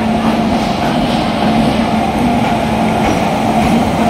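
Indian Railways electric locomotive rolling slowly into the platform at the head of a passenger train. A steady low hum rides over the rumble of its wheels on the rails, growing slightly louder as it draws alongside.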